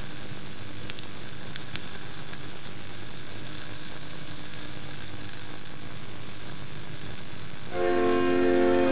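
Steady hiss with a few faint clicks, the surface noise of a vinyl record in the silent gap between two pieces. Near the end a pipe organ comes in with loud sustained chords.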